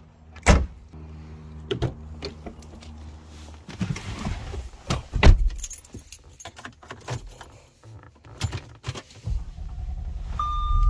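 A car trunk lid slammed shut, then keys jangling and a car door shutting. Near the end an Audi S4's supercharged V6 starts with a low rumble, along with a short dashboard chime.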